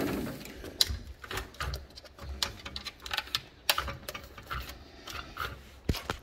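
Irregular clicks, taps and rattles of blinds and a sliding glass door being fumbled open, with low bumps from the phone being handled.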